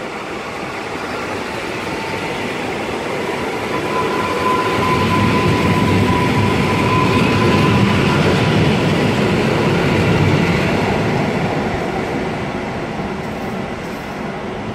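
EN57 electric multiple unit moving past on the platform track: running and traction noise swells to a peak about halfway through, then fades. A thin steady whine sounds over it for a few seconds in the middle.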